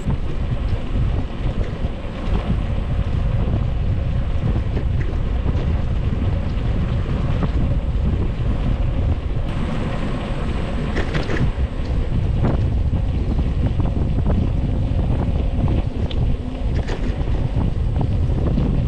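Wind buffeting a camera microphone on a moving bicycle: a loud, steady, low rumbling rush, with a few brief clicks partway through.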